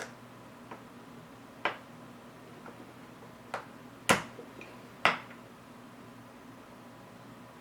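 A handful of sharp clicks and taps from small camera parts being handled and fitted, the two loudest about four and five seconds in, over a faint steady hum.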